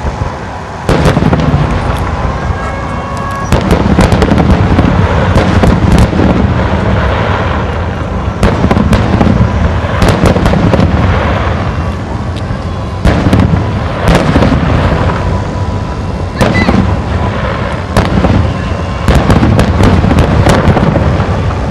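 Aerial firework shells bursting one after another in a dense barrage, loud booms and crackles coming every second or so.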